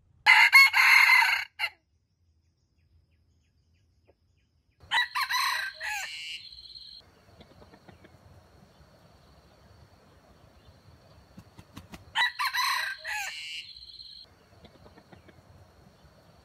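Red junglefowl rooster crowing three times, each crow short and clipped at one and a half to two seconds, the first the loudest. A faint steady high whine carries on after the second crow.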